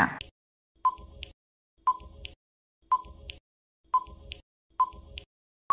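Quiz countdown timer sound effect: five short ticks, about one a second, each with a brief ringing tone.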